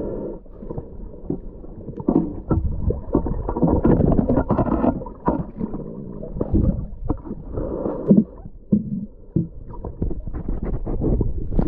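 Muffled underwater rumbling and gurgling with irregular knocks and surges, water moving past a camera in its waterproof housing as a diver swims.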